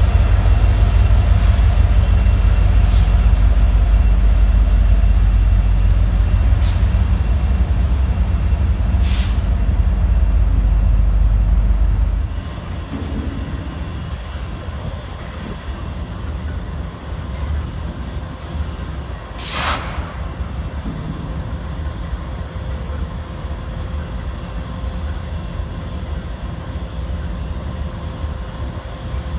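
Union Pacific diesel locomotive passing close by with a loud, heavy low rumble and a few sharp clicks. About twelve seconds in the sound drops abruptly to a quieter, steady hum of diesel locomotives running in a rail yard, with one short burst of hiss about twenty seconds in.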